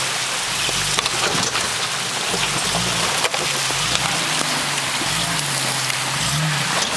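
Modified Nissan Patrol's engine revving up and down as the truck crawls over rocks, under a steady rushing hiss, with a few sharp knocks.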